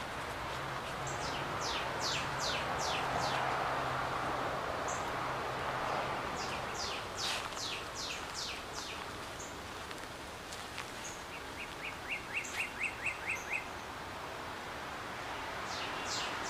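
Birds singing: several runs of quick down-slurred whistles, each run a handful of notes, and about twelve seconds in a short, rapid series of identical notes, over a steady background hiss.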